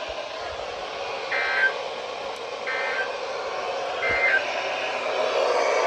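NOAA Weather Radio SAME end-of-message data bursts: three short, buzzy two-tone digital bursts about 1.4 seconds apart over receiver hiss. They mark the end of a flash flood warning broadcast.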